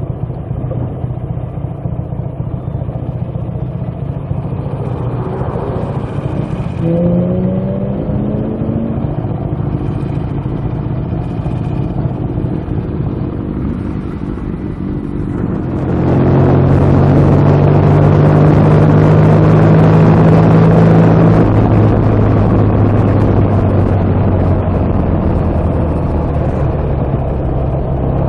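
BSA A65's parallel-twin engine running, heard from the rider's seat. It is fairly quiet at first, with a brief rising note about a quarter of the way in. From about halfway it turns louder and steady as the bike pulls away and rides on, with road and wind noise under it.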